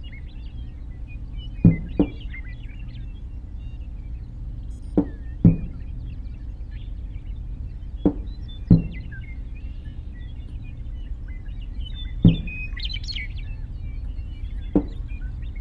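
Sharp knocks, mostly in pairs a fraction of a second apart, coming every three or four seconds, over faint bird chirps and a steady low background rumble.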